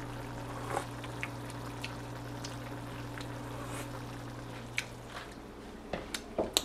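Ground turkey simmering in a pan with added water, a faint scatter of bubbling ticks over a steady low hum that fades about two-thirds of the way in. Near the end come a few sharp clicks of a spoon being laid down on a plastic cutting board.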